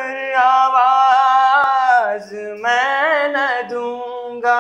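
A man singing a Hindi love song unaccompanied, holding long vowel notes that bend and waver in pitch, with a short dip about two seconds in.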